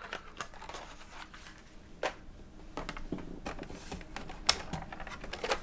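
Packaged die-cast toy cars being handled: scattered light clicks and rustling of plastic blister packs on cardboard cards.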